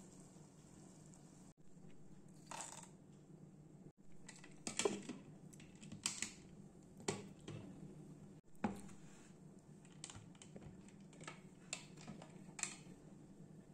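Scattered sharp clicks and taps, about ten of them at uneven intervals, from a stainless steel mixer-grinder jar and its plastic lid being handled, over a faint steady low hum.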